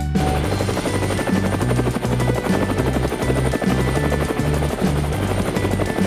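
Cartoon helicopter sound effect: a steady, rapid rotor chop that cuts in suddenly at the start, over background music with a stepping bass line.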